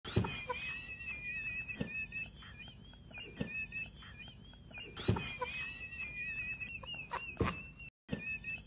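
A man's high-pitched wheezing laugh: a thin, wavering, whistle-like squeal broken by sharp gasping breaths every second or two. It drops out briefly near the end.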